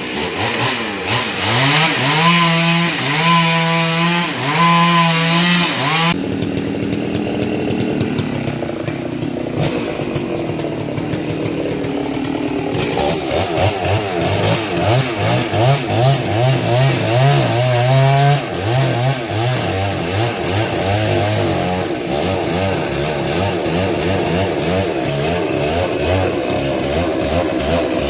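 Two-stroke chainsaws revving up and down over and over while bucking fallen tree trunks. The sound changes abruptly about six seconds in and again near the middle.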